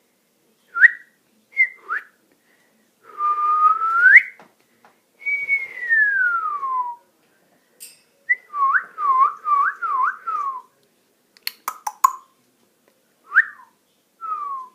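African grey parrot whistling a string of notes: short upward chirps, a long rising whistle, a long falling whistle, then a quick run of rising-and-falling notes. A few sharp clicks come about twelve seconds in, followed by short falling whistles.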